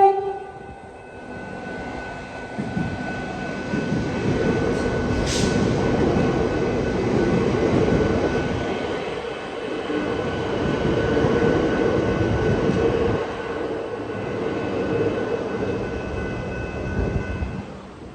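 The end of a short train horn blast right at the start, then an electric suburban train passing over a level crossing for about sixteen seconds: steady wheel-on-rail rumble rising and falling, with a steady high tone over it, dying away near the end.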